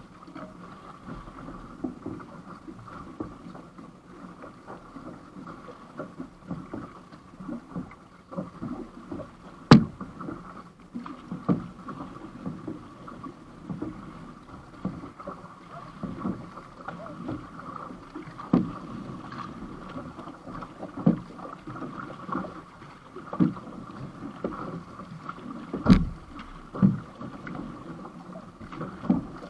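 Water rushing and slapping against an outrigger canoe's hull and float as the crew paddles through choppy water, with irregular splashes every second or two. Two sharp knocks stand out, one about ten seconds in and one near the end.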